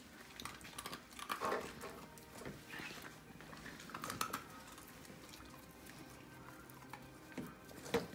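Welsh terrier puppies nosing at a KONG Gyro kibble-dispenser toy on a tile floor: scattered light clicks and taps of the plastic toy and claws on tile, with crunching of kibble.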